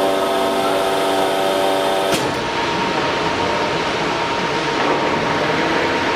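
Horizontal liquid silicone rubber injection molding machine running: a steady machine hum of several tones cuts off with a click about two seconds in, leaving a steady whirring noise with a thin high tone.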